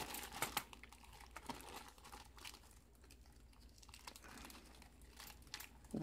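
Clear plastic bag crinkling as hands open a bag of key blanks: faint, scattered crackles, busiest in the first second, then only now and then.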